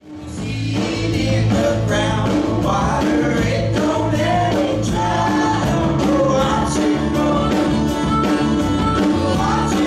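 Background music: a song with a sung vocal over a steady beat.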